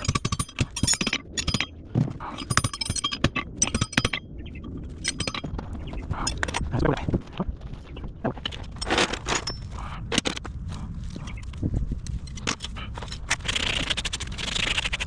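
Farrier's hammer striking a steel horseshoe in quick runs of blows that ring, then scattered single strikes, and a rasp scraping near the end.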